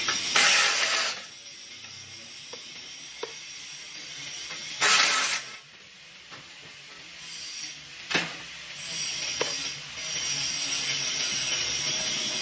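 Shop tools at work on an exhaust: two short, loud bursts of harsh mechanical noise about four seconds apart and a few sharp metallic clicks, over a steady hiss.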